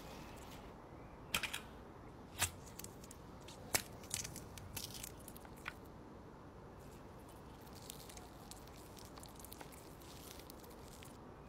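Close-up food-preparation handling sounds on a wooden cutting board: a handful of short, sharp crackles and taps in the first half, then softer, quieter handling, over a steady faint hiss.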